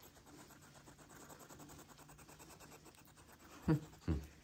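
Faint, fast scratching and rustling as a baby hedgehog shifts and curls in a person's hand, with its quills rubbing on the skin. Near the end come two short vocal sounds that fall in pitch.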